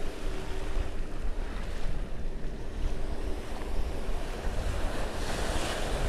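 Small surf waves breaking and washing up the sand at the water's edge, with wind buffeting the microphone. A wash swells louder near the end.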